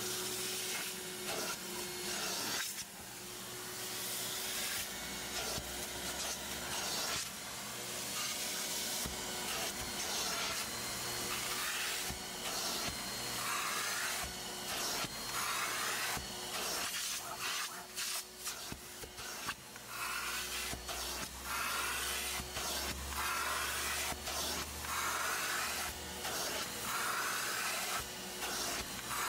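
Aqua Pro Vac carpet extractor running, its upholstery tool sucking water out of a cloth car seat in repeated strokes. A steady motor whine sits under a hiss that swells on each pass and drops between passes, about every second or two.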